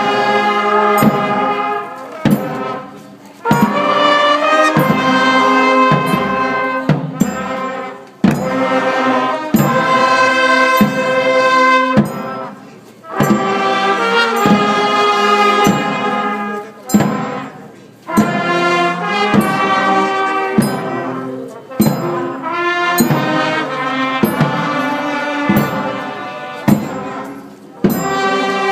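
Brass band of trumpets and trombones playing sustained chords in phrases of a few seconds, each broken by a brief pause.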